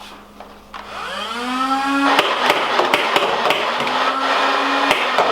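Nerf Rival Nemesis MXVII-10K's flywheel motors spinning up with a rising whine about a second in, then holding a steady whine while the blaster fires a rapid full-auto burst of rounds, heard as fast irregular clicks and knocks until near the end.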